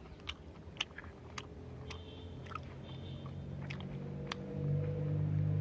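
Close-up chewing of a mouthful of rice and chicken curry eaten by hand, with wet smacks and sharp mouth clicks. A low steady hum builds underneath and is loudest near the end.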